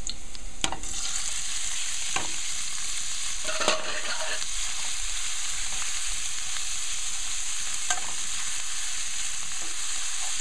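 Pieces of soaked saltfish (Alaskan pollock) frying in hot oil with garlic, a steady sizzle that jumps up about a second in as the fish goes into the pan. A fork turning the fish clicks against the pan a few times.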